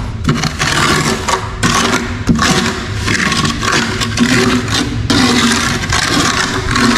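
Steel trowel scraping as it spreads a thin coat of cement tile paste over the back of a ceramic tile, in a series of long strokes of about a second each: back-buttering the tile so it does not come loose.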